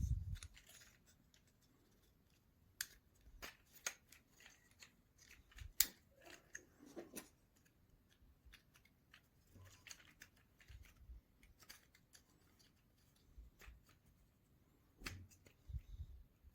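Faint, scattered clicks and small taps of thin basswood model parts being handled and pressed into place, with a soft thump at the start and a few more near the end.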